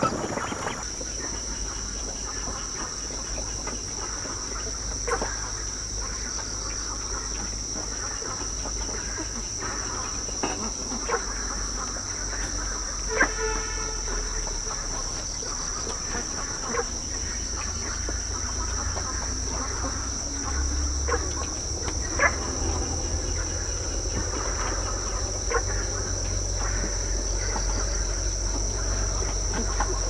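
Night insects, crickets or the like, trilling in a steady, unbroken high-pitched chorus, with a few scattered faint clicks and short calls and a low rumble underneath.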